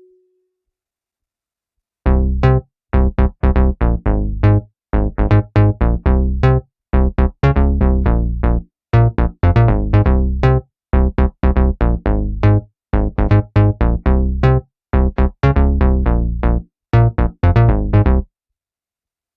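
Roland System-8 synthesizer playing a Jupiter-8 preset: a fast, rhythmic sequence of short, staccato notes with a heavy bass, starting about two seconds in and cutting off abruptly near the end.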